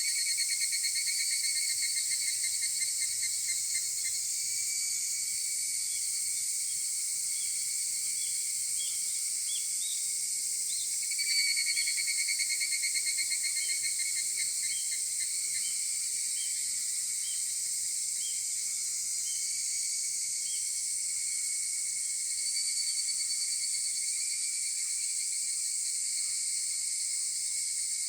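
Higurashi (evening cicadas) calling in bouts of fast pulsed phrases, one at the start, another about eleven seconds in and a third about twenty-two seconds in. Each bout rises and fades back into a steady high-pitched hiss of other insects.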